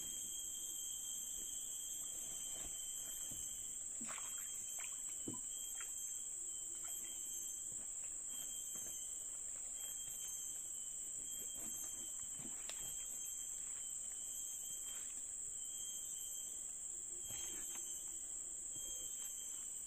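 Steady high-pitched drone of forest insects, unbroken and even, with scattered faint knocks and clicks.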